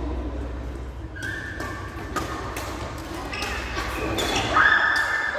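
Badminton doubles rally: a quick series of sharp racket strikes and thuds of feet, with court shoes squeaking on the sports-hall floor. The loudest squeak comes near the end.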